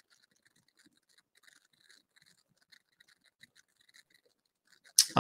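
Faint scattered scratchy ticking, then near the end a sharp breath out from a man that runs straight into his voice.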